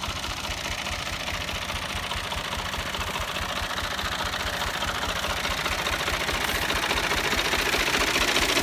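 Al-Ghazi tractor's diesel engine running steadily with a fast, even low pulse, growing slowly louder as it comes closer.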